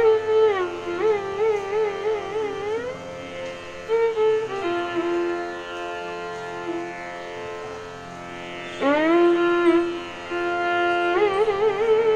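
Instrumental background music in an Indian classical style: a single melodic line with wavering, ornamented notes and held tones, and a quick upward slide about nine seconds in.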